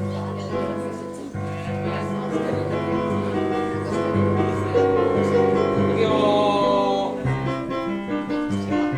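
Class choir singing together over keyboard accompaniment with a steady low bass line.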